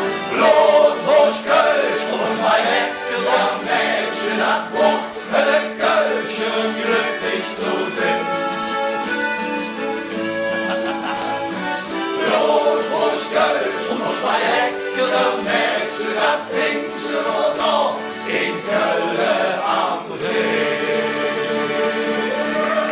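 A group of men singing a German song in chorus, accompanied live by strummed acoustic guitars, a mandolin, an accordion and a shaken tambourine.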